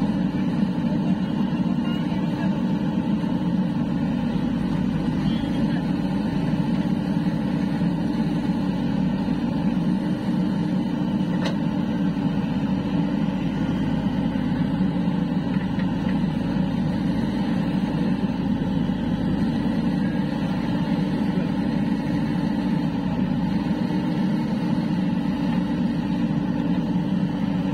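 JCB 3DX backhoe loader's four-cylinder diesel engine running steadily under load while it works its hydraulic backhoe arm.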